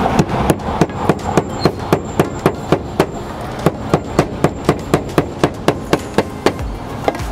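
Claw hammer nailing a cut concrete roof tile in place through a hole drilled in it: quick, even hammer taps, about three or four a second, stopping shortly before the end.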